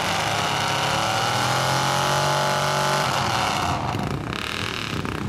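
Mud truck's engine revving hard under load: the revs climb, hold high, then drop away about three and a half seconds in.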